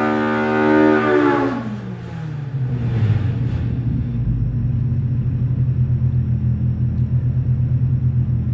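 Polaris Pro R four-cylinder engine, fitted with an aftermarket header and a 3-inch straight-through muffler, on an engine dyno at the top of a full-throttle pull near 8,800 rpm. About a second and a half in, the throttle closes and the high note falls away over about a second. The engine then settles into a low, pulsing idle around 1,300 rpm.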